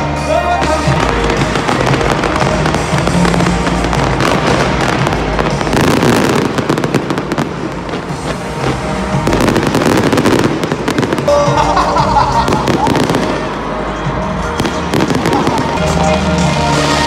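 Stadium fireworks bursting and crackling: a dense run of rapid pops and crackles, thickest about six and ten seconds in.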